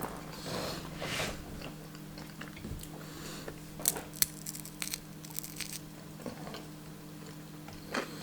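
Close-up biting and chewing of a grilled peanut butter, jelly and banana sandwich, the toasted bread crunching, with a few sharp crunches and mouth clicks around the middle. A steady low hum runs underneath.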